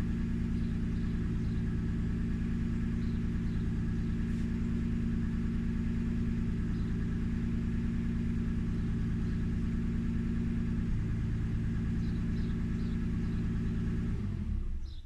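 Toyota 1G-GTE twin-turbo straight-six idling steadily, then shut off near the end, its note falling away as it stops.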